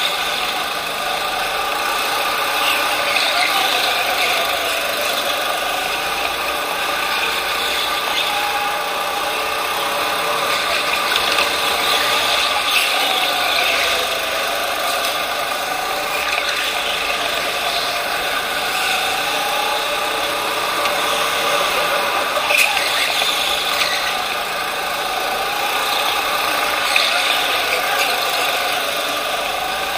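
Racing go-kart heard from onboard at race pace: a steady motor drone whose pitch rises and falls gently as the kart slows for corners and speeds up out of them.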